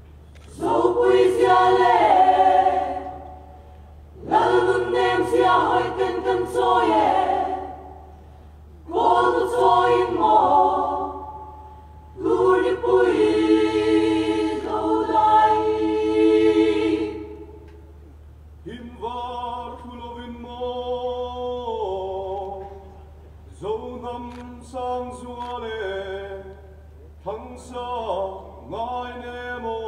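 Mixed choir of men and women singing a cappella, in long phrases with short breaths between them, the singing growing softer after about eighteen seconds.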